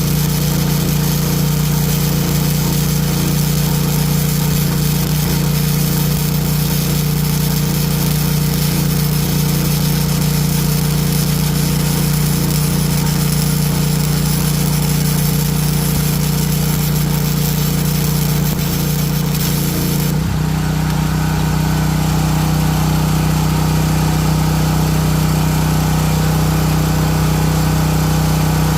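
Off-brand portable generator engine running steadily while powering a flux-core welder, with a loud hiss from the welding arc. About two-thirds of the way through, the hiss cuts out suddenly and the generator's pitch shifts briefly as the welding load comes off, then it runs on.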